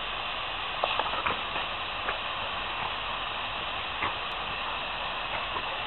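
Garden hose spray nozzle hissing steadily as a dog bites at the water jet, with a few short clicks and splashes around one second in and again near four seconds.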